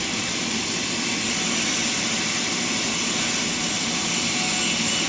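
Sawmill machinery running with a steady, unbroken noise, heavy in the high end.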